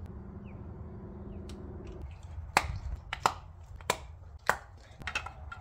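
Sharp clicks and snaps, about one every two-thirds of a second from about two seconds in, from hand work on the spark plugs: a ratchet on the freshly installed plugs and the spark plug wire boots being pushed onto them.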